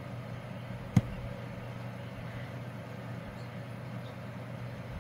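Steady low background hum and hiss of room noise, with one sharp click about a second in.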